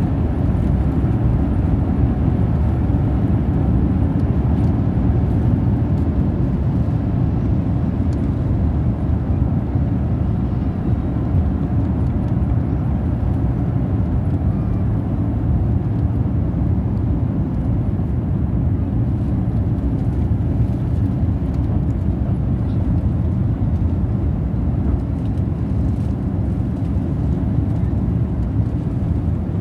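Airbus A350 cabin noise during the takeoff run and climb-out: the Rolls-Royce Trent XWB engines at takeoff thrust and the rushing air make a loud, steady low rumble that eases slightly near the end as the aircraft climbs.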